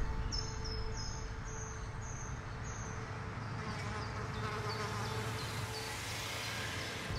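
Insect ambience: short high chirps repeating about twice a second, thinning out after about three seconds, over a steady low hum.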